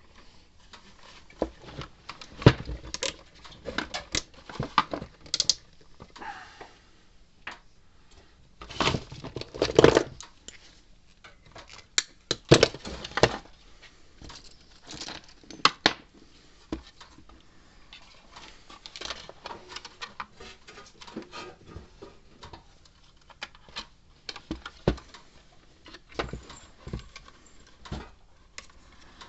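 Irregular clicks, clinks and scrapes of tools and small parts being handled on a workbench during the repair of an electric fence energizer, with a few louder knocks.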